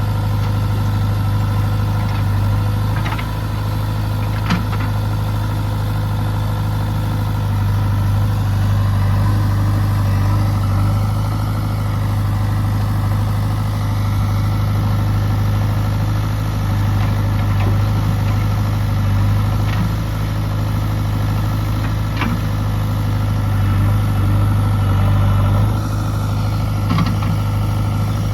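Diesel engine of a backhoe loader or tractor running steadily at a constant speed, with a few sharp knocks.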